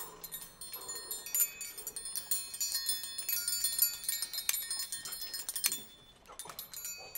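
Metal triangles struck rapidly, their high, shimmering ringing overlapping, thinning out about six seconds in.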